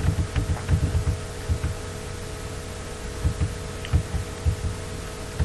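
Steady electrical hum from the recording, with irregular soft low thumps and murmurs, grouped at the start and again from about three seconds in.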